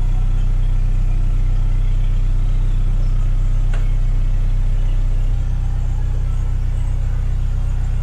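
Narrowboat's diesel engine idling, a steady low drone; a little over five seconds in its note shifts.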